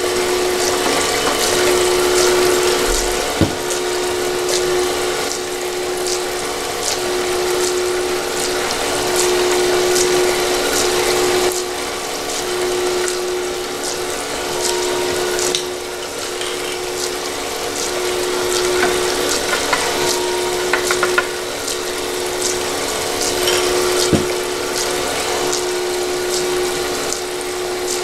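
Automatic gold panning machine running: its water pump and pan motor hum steadily, swelling and fading about every two seconds, while water pours and splashes off the turning spiral pan into the tub. Light ticking throughout, with a small knock about three seconds in and again near the end.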